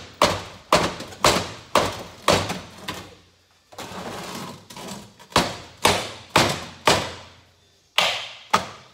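Plastic mallet striking the sprocket end of the main shaft on a Kawasaki G7 100 two-stroke engine, tapping the crankcase halves apart. The knocks are sharp, about two a second, in runs with a pause about three seconds in.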